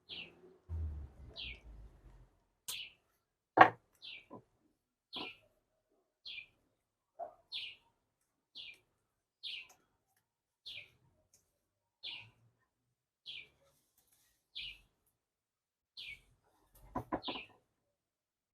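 A bird repeating a single short, high chirp about once a second. A few clicks and knocks from handling are mixed in, the loudest about three and a half seconds in, with a brief rattle of handling near the end.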